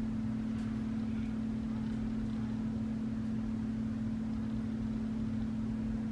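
A steady low hum with a faint hiss beneath it, even in level and unchanging throughout.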